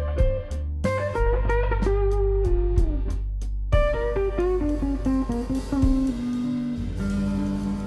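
Guitar-led instrumental music with a steady beat and a melody that steps downward, the beat breaking off briefly about three and a half seconds in before the music carries on.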